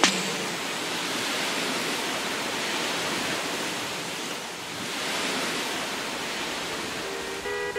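Steady rushing water, an even hiss that dips slightly and swells again about four to five seconds in.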